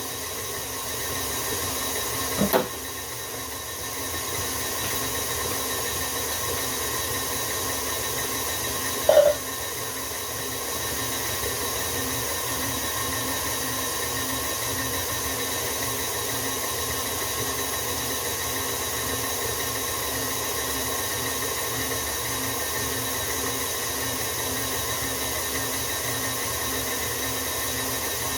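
Electric mixer running steadily, beating a batter at speed. A click comes about two and a half seconds in, and a short, louder tone sounds about nine seconds in.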